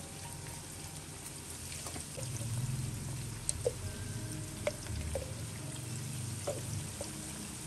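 Leafy greens and corn sizzling in a hot stone-coated wok as they are stir-fried, a steady hiss, with a few short clicks through the middle.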